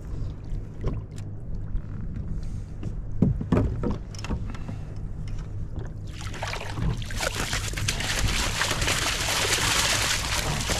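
Water sloshing and splashing around a kayak on the sea, with a few scattered knocks over a low steady rumble. About six seconds in, a louder steady hiss starts.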